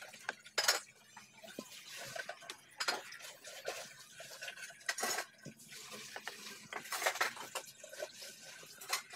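Clinks and knocks of an enamel plate and a wire grill grate being handled as whole fish are laid on the grill over charcoal, with a sharp tap every second or two.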